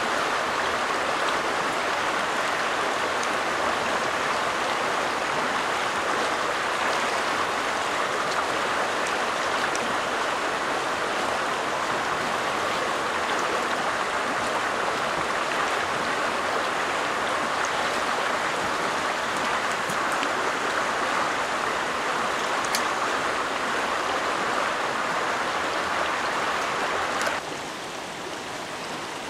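Shallow, rocky stream running over stones, a steady rushing close by. Near the end it drops suddenly to a softer, more distant flow.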